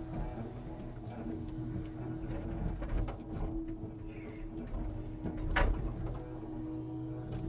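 Timber truck's loading crane at work: a steady hum with scattered knocks and clicks, the loudest knock about five and a half seconds in.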